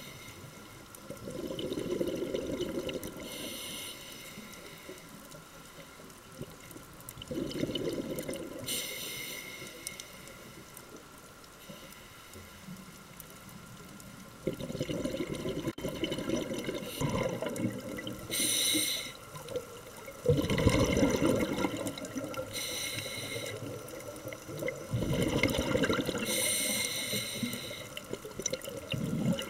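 Scuba diver breathing through a regulator underwater: a short high hiss on each inhale, then a low bubbling rumble as the exhaled air bubbles away. About five breaths.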